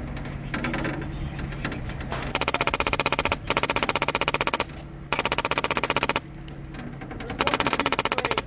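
Airsoft gun firing on full auto in four bursts of rapid shots, each about a second long.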